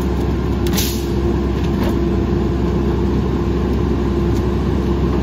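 Mack LE rear-loader garbage truck's engine and packer hydraulics running steadily as the rear packer compacts a hopper load of tree branches, a constant low hum with a held tone over it. A brief crackle about a second in.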